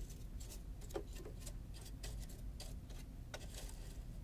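Faint, irregular light clicks and ticks from a small cleaning tool working among the metal parts of a sewing machine's bobbin area, clearing out packed lint, over a low steady hum.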